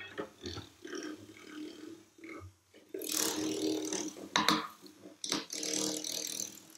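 Extended-technique cello sounds: a small blue-tipped stick rubbed and scraped against the cello's wooden body, giving uneven grinding, groaning friction tones in bursts, with a couple of sharp knocks about four and five seconds in.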